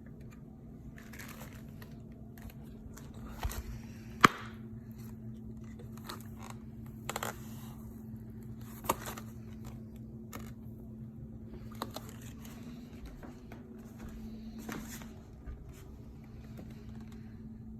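Hands handling packaging and a device: intermittent crinkling, scraping and clicks, with one sharp click about four seconds in, over a steady low hum.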